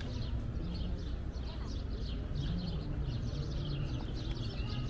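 Many small birds chirping densely and continuously, a rapid overlapping chatter of short high calls, over a low steady background rumble and distant people's voices.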